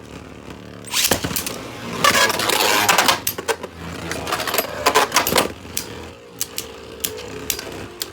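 Two Beyblade spinning tops, a 3D-printed Agèma Ares and a Guilty Longinus, battling in a plastic stadium: a loud clash about a second in, a dense grinding scrape for about a second after that, then a run of sharp clicking hits. Near the end a steady spinning hum as the tops run on.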